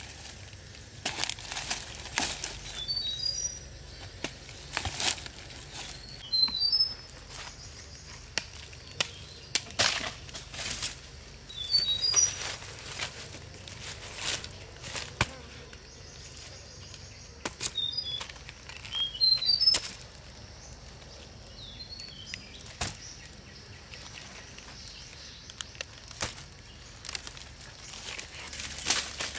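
Dry leaf litter rustling, with irregular knocks and thuds as round tubers are picked up from the forest floor and dropped into a woven basket. A bird gives short rising chirps, quieter, about half a dozen times.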